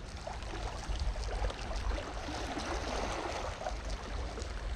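Small waves lapping and gurgling against shoreline rocks, with a steady low rumble underneath.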